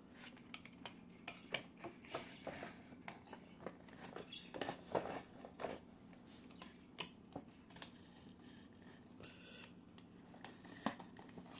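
A blade cutting through the tape seals of a cardboard toy box: faint, irregular clicks and scratches.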